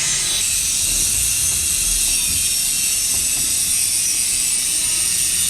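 Grinder running steadily at full speed, a continuous high hiss of grinding.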